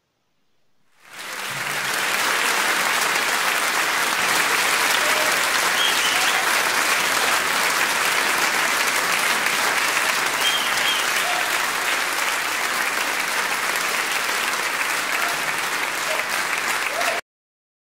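Crowd applause that fades in about a second in, holds steady, and cuts off suddenly near the end.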